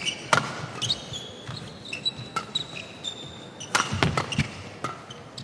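Badminton rally: rackets striking the shuttlecock in several sharp cracks, about one a second, with brief high squeaks of court shoes on the floor between hits.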